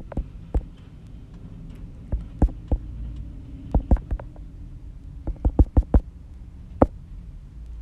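Computer keyboard typing: short sharp clicks in several quick bursts, over a low steady hum.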